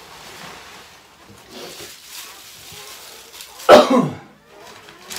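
One loud, short cough about three and a half seconds in. Before it, soft rustling of loose pine shavings being handled and spread.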